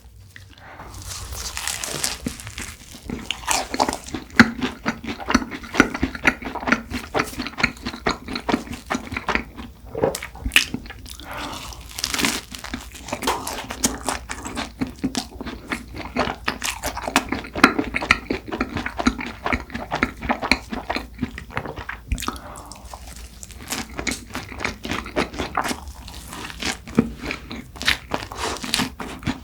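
Close-miked biting and chewing of a cronut, a flaky fried croissant-doughnut, with many crisp crackles from the layered pastry crust and softer chewing in between.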